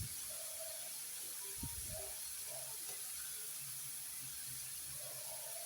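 Onions and carrots sizzling faintly in oil in a pan: a quiet, steady hiss, with a few soft, brief sounds over it.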